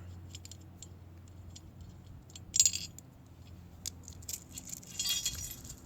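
Loose steel hitch parts clinking and rattling as they are handled, with one sharp clank about two and a half seconds in and a jingling rattle near the end, over a faint steady low hum.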